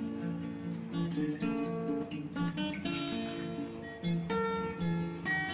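Background music of plucked acoustic guitar, notes and chords changing every half second or so.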